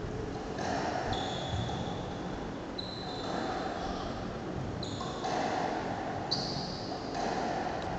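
Squash rally: players' court shoes squeaking on the court floor in repeated squeaks about a second long, with the ball being struck and hitting the walls.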